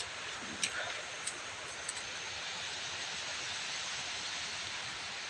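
Steady, even hiss of water, rain or running water, with a few faint ticks in the first two seconds.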